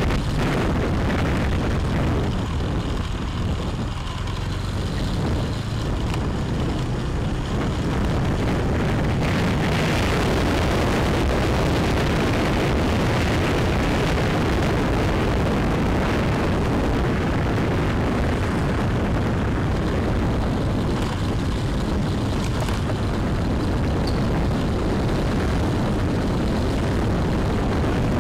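A moving motorbike's steady riding noise: engine running with wind rushing over the microphone, a low, even rumble that barely changes.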